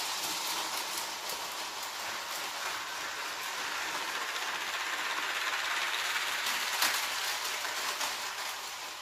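Motorised brick-built model of a DB ET 403 electric multiple unit rolling along plastic toy track: a steady whirring rattle of wheels and drive with light clicks, swelling as it passes and easing off near the end.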